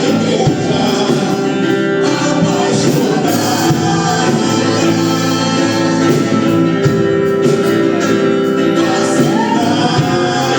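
Congregational worship music: a group of voices singing a Portuguese gospel song over a full band.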